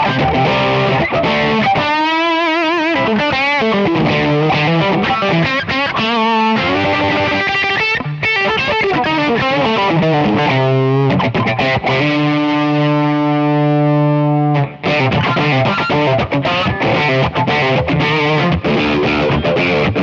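Electric guitar played through a DSM & Humboldt Simplifier MK2 preamp, its speaker simulation set to a 1x12 cabinet with an Eminence speaker on one side and a 4x12 with Greenback speakers on the other. A note wavers with vibrato early on, and a chord rings for about three seconds before being cut off sharply as the playing carries on.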